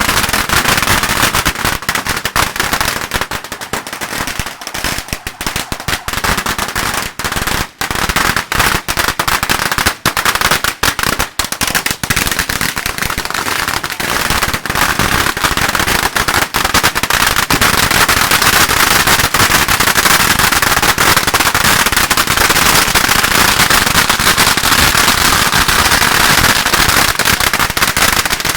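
A long string of firecrackers going off in a rapid, continuous crackle of bangs, becoming denser and steadier about halfway through.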